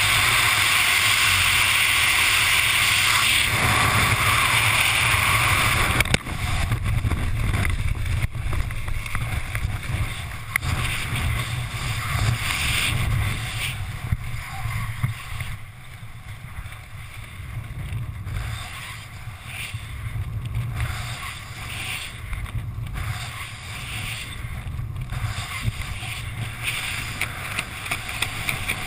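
Wind rushing over a skydiver's helmet-mounted camera microphone: a loud, steady rush for about six seconds that drops sharply with a knock, then lower, gusty buffeting with a low rumble while under the open parachute canopy.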